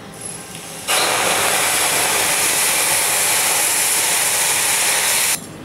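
Milk poured in a steady stream from a steel pot onto roasted rolled oats in a steel pan: an even splashing hiss that starts about a second in and stops suddenly near the end.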